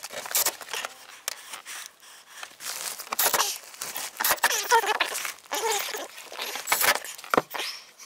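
Crinkling and rustling of foil-jacketed flex duct being pushed and handled, with scattered light knocks and clicks.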